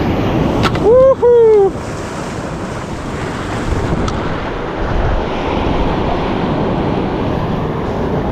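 Waves and surf with wind buffeting the microphone. About a second in, a person gives two short, loud whoops that rise and fall in pitch.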